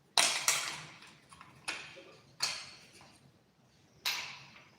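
About five sharp clacks at uneven intervals, each fading out over about half a second: handling knocks from something being picked up or set down.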